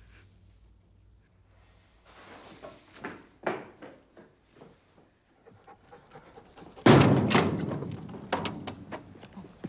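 A sheet-metal door bangs open with a sudden loud crash about seven seconds in, followed by several rattling knocks. A couple of quieter thuds come a few seconds before it.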